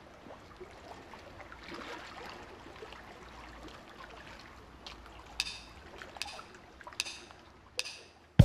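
A faint, steady hiss, then four sharp clicks evenly spaced about a beat apart in the last few seconds: a count-in just before the band's drum kit comes in.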